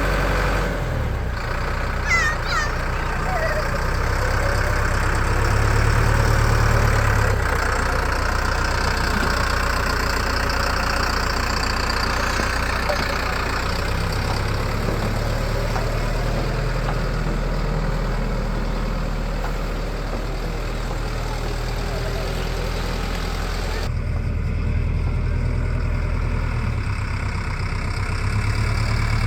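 A diesel engine running steadily at low speed. Its low rumble swells a little about five seconds in and again near the end.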